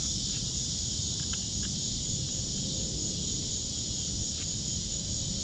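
Steady, high-pitched chorus of crickets, with a few faint clicks from pliers working small plastic clips out of a grille insert, over a low rumble.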